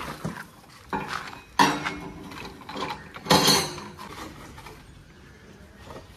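Clanking and clattering of pipe fittings and gear being dropped into a backhoe loader's steel front bucket: a few separate knocks with a short ring, the loudest about a second and a half in and another about three and a half seconds in.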